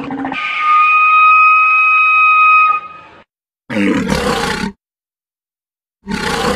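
Walrus calls: a low grunt that cuts off just after the start, then a long steady whistle lasting about two and a half seconds, then two short, harsh bellows about two seconds apart, with dead silence between them.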